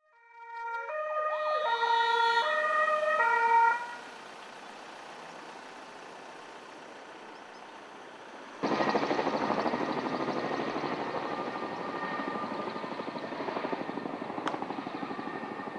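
An emergency vehicle's two-tone siren alternates between a high and a low note as it passes, then cuts out after about four seconds, leaving a steady hiss. About halfway through, the rapid chop of a firefighting helicopter's rotor starts suddenly and continues to the end.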